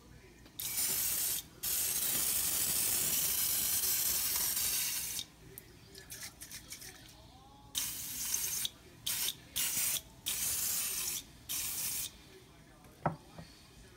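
Butter Spritzer spray can hissing as it mists butter flavouring onto popcorn: a short spray, a long one of three to four seconds, then five shorter sprays. A single sharp click near the end.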